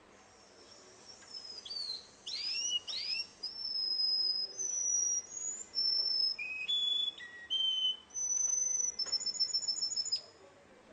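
Russian singing canary (contest song canary) singing a song of separate phrases. It opens with a few quick downward-sliding notes, moves through a series of clear held whistles that step between pitches, and ends near the end in a fast trill.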